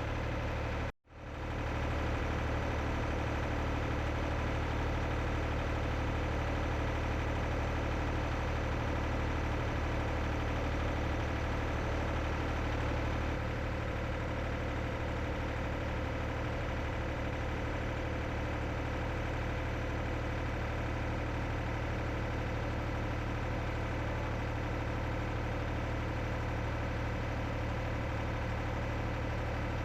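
An engine running steadily at idle. The sound cuts out for a moment about a second in.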